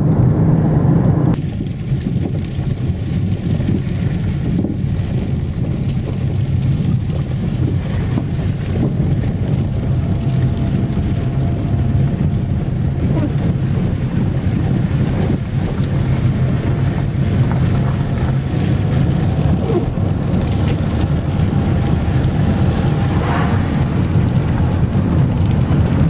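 Steady road and engine noise of a car driving, heard from inside the cabin. The sound shifts abruptly about a second in and then stays even.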